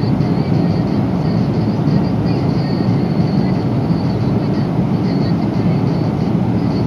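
Steady roar of cabin noise inside a Boeing 777-300 airliner at cruise, from its engines and the airflow over the fuselage, with most of the sound low and deep.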